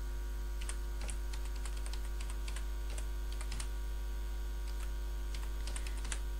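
Typing on a computer keyboard: irregular key clicks while an email address is entered, over a steady electrical hum.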